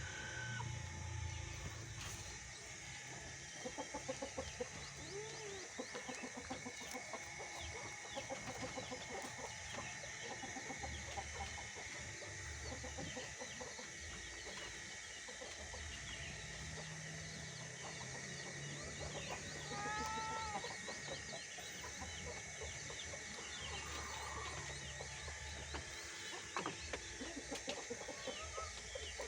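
Chickens clucking, with a few short rising calls about twenty seconds in, over a low rumble.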